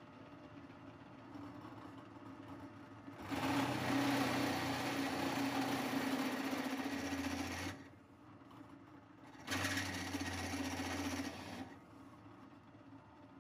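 Drill press running, its bit cutting into a metal plate in two spells of drilling: about four seconds, a pause, then about two more. Between the spells the motor hums on at a lower level.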